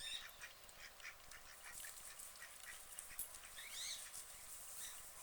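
White ducks quacking: faint, short calls, with a quick run of quacks about three and a half seconds in.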